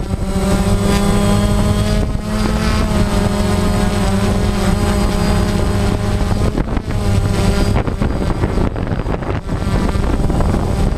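DJI Phantom quadcopter's electric motors and propellers buzzing, recorded from the drone's own camera as it hovers low and comes down to land. The pitch wavers as the motors adjust their speed, with some wind rush on the microphone.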